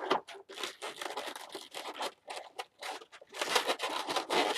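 Latex modelling balloons rubbing and scraping against each other and the hands as they are twisted and pulled into shape, in irregular scratchy bursts.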